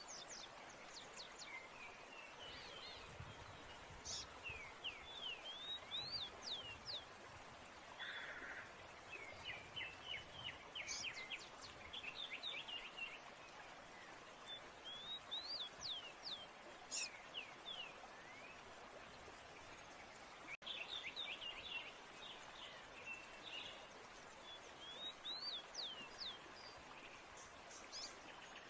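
Small birds chirping in scattered quick series of short sweeping notes, over a steady background hiss.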